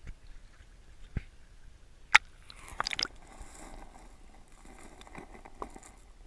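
Camera in a waterproof housing being dipped into a shallow creek: a few sharp clicks and knocks against the housing, the loudest about two seconds in and a quick cluster about a second later, then a faint crackling fizz of water around the submerged housing with a couple of small ticks.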